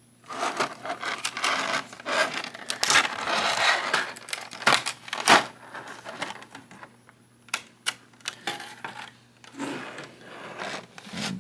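Plastic packaging crinkling and rustling as translucent plastic aura effect parts are unwrapped, with sharp clicks of hard plastic pieces. The crinkling is densest for the first four seconds or so, then gives way to scattered clicks and handling.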